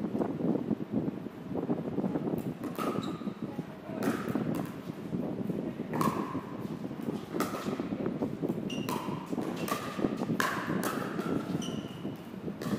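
Pickleball rally: a plastic pickleball being struck by paddles and bouncing, a series of short sharp pocks about every half second to a second, over steady wind noise on the microphone.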